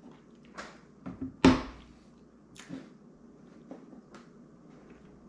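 A knife and fork knocking and scraping against a plate while cutting into a cake: a handful of short, scattered knocks, the loudest about one and a half seconds in.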